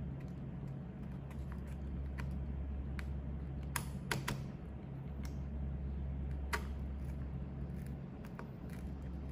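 Craft knife blade cutting and poking a hole in cardboard: scattered small clicks and scrapes, a cluster of them about three to four seconds in, over a steady low hum.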